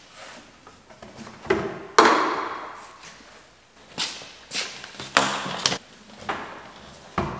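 Knocks and clunks of a small shop vacuum and its hose being handled and lifted up onto a tractor's steps. One loud bang about two seconds in echoes off the shop walls.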